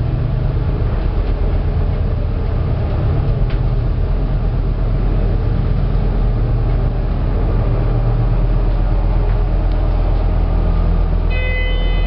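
Lift car travelling, with a steady low rumble. About eleven seconds in, an arrival chime of two tones sounds as the car reaches the deck.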